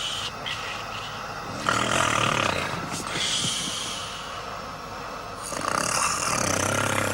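A man snoring heavily in his sleep: two long rasping snores about four seconds apart, each with a low rattle and a hissing breath.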